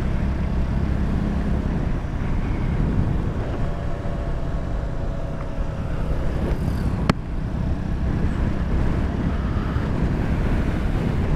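Motorcycle cruising at a steady speed of about 55 km/h: engine running and wind rushing past, heavy in the low end. A single sharp click about seven seconds in.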